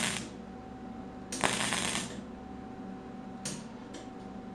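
Wire-feed welder arc crackling on thin sheet metal in short stop-start bursts: one burst ends just after the start, a longer one of under a second comes about a second and a half in, and two brief crackles come near the end. A steady hum runs underneath.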